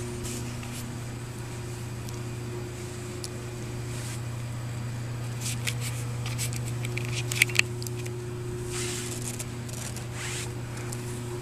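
Towels and fabric rustling close to the microphone, with scattered clicks and two sharp ones in quick succession about seven and a half seconds in, over a steady low hum.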